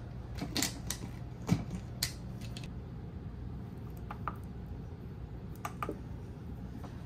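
A glass lid is set onto a Crock-Pot slow cooker with a few clinks and a knock, the loudest about a second and a half in. After that come short, light clicks as the slow cooker's control-panel buttons are pressed to set the timer. A steady low hum runs underneath.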